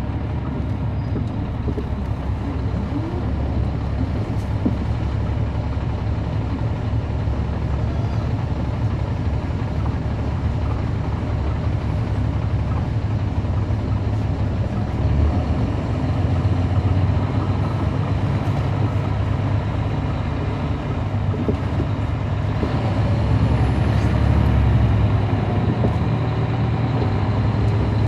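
Caterpillar C13 ACERT diesel engine of a 2009 NABI 416.15 transit bus running as the bus drives, heard from inside the cabin at the rear as a steady low drone. The engine swells a little louder about halfway through and again near the end.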